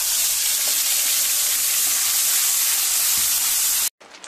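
Wet onion-tomato-garlic-ginger paste hitting hot mustard oil in a kadhai with whole spices, giving a loud, steady sizzle that cuts off suddenly near the end.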